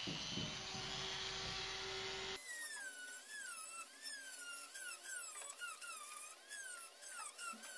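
Handheld rotary tool with a small ball burr carving window recesses into a wooden fuselage. It starts as a rough, steady grinding noise, then about two seconds in changes abruptly to a high whine that keeps dipping and rising in pitch, roughly once a second.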